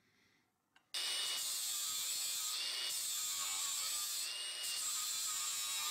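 Angle grinder with a thin cut-off disc cutting through a small steel plate, starting abruptly about a second in: a steady, loud, harsh grinding with a high whine that wavers as the disc bites.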